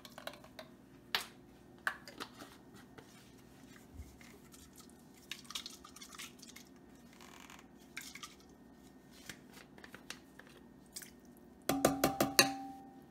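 Small scattered clicks and taps from a glass jar of minced garlic being worked and emptied over a soup pot, then near the end a quick run of knocks against the rim of the enamelled pot, which rings.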